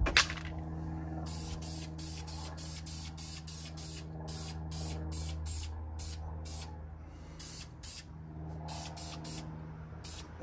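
Aerosol spray can of red brake caliper paint spraying onto a brake caliper in a quick series of short bursts of hiss, over a steady low hum. There is a sharp click right at the start.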